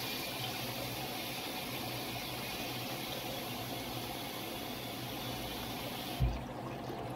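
Kitchen tap running water onto boiled noodles in a mesh strainer, splashing into a pan of water in a steel sink. The running stops about six seconds in, with one short low thump.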